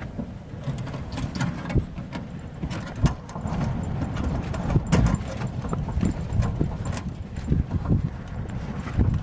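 Wind buffeting with a low, uneven rumble, and irregular knocks and clicks throughout.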